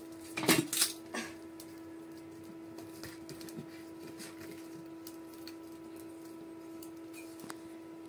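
Wood fire burning under a cooking pot, with a few sharp cracks within the first second or so, then a faint steady hum.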